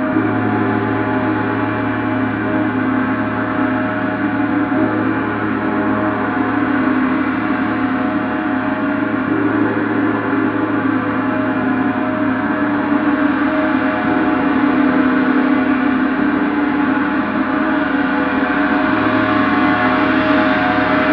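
Gong sounding in a continuous, dense wash of many overlapping sustained tones, with no single strike standing out. It grows slightly louder toward the end.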